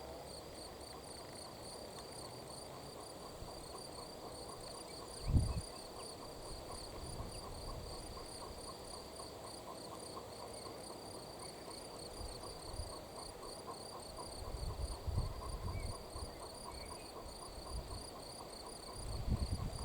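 Crickets chirping steadily in rapid, evenly repeated high-pitched pulses. A single low thump about five seconds in and some low rumbling later on.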